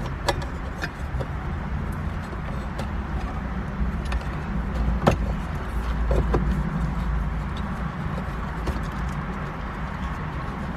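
Scattered light clicks and taps of parts being handled as a car's shift console is reassembled, the sharpest about halfway through, over a steady low rumble.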